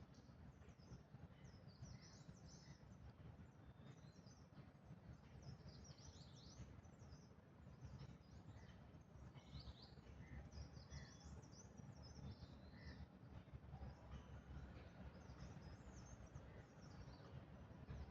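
Faint outdoor ambience: many short bird chirps and twitters scattered throughout, over a steady low rumble.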